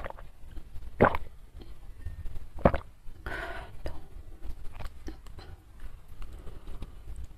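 Tabletop handling sounds: a few sharp knocks as a glass mug is set down and a plastic tub of chili sambal is picked up, then soft clicks and scrapes as the sambal is tipped out of the tub onto the rice.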